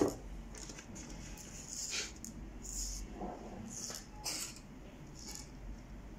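Scattered light rustling and handling noises, a few short scrapes about a second apart, over a faint steady hum.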